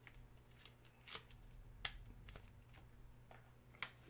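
Faint scattered clicks and taps of trading cards and a clear plastic card holder being handled on a table, the sharpest click near the end.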